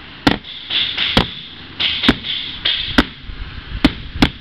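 A small hammer tapping on a boat transom, about six single taps roughly a second apart, each with a short ring after it. The taps work up the transom toward a weak area where the wood core behind the skin is gone.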